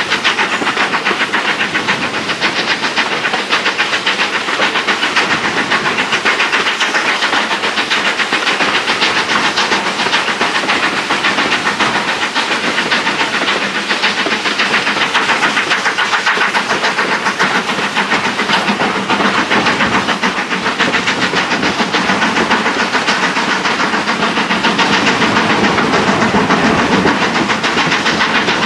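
Steam train hauled by BR Standard Class 4 2-6-0 No.76084 running at speed, heard from an open coach window: a steady, loud rush of locomotive exhaust, wind and wheels on the rails.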